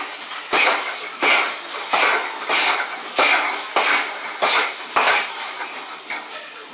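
Punches thudding into a hanging heavy bag: about eight body shots in a steady rhythm, roughly one every two-thirds of a second, stopping about five seconds in.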